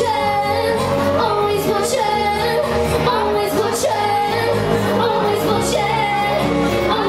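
A woman singing live into a microphone over instrumental accompaniment, her sung melody gliding over sustained low bass notes and a steady beat.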